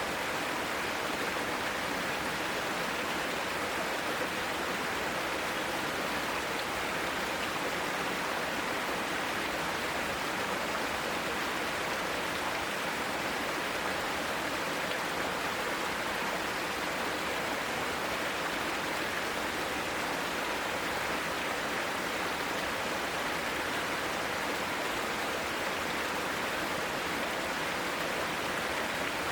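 Mountain stream rushing over rocks in a steady, unbroken rush of water.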